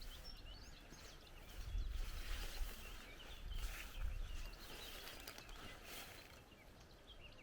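Faint outdoor ambience of small birds chirping and twittering, many short calls throughout, with a low rumble at the bottom a couple of times.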